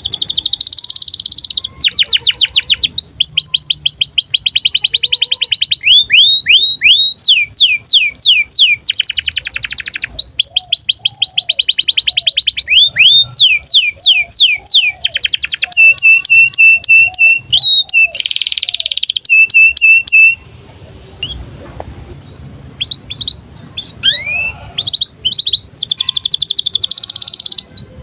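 A canary in breeding condition singing loud, fast rolling trills of rapidly repeated sweeping notes, mixed with dense buzzy rolls and a run of steady repeated notes. There is a short, quieter break about three quarters of the way through.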